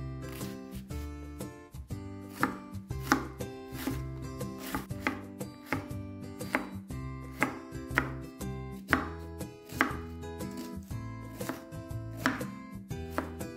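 Kitchen knife chopping an onion on a bamboo cutting board: a crisp knock of the blade on the wood roughly once or twice a second, irregular in pace.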